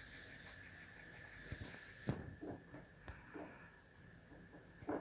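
A cricket chirping in an even, high-pitched pulse of about seven chirps a second. It drops much quieter a little after two seconds in and keeps going. Faint soft knocks sound underneath.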